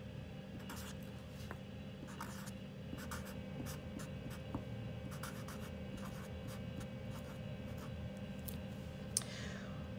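Felt-tip marker writing a word on paper: a string of short, irregular pen strokes, with one sharp tick about nine seconds in.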